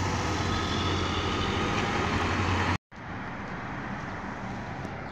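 PAZ-4234 bus driving past: its engine runs with a steady low drone under loud road noise. About three seconds in, the sound cuts off abruptly and quieter, steady street traffic noise follows.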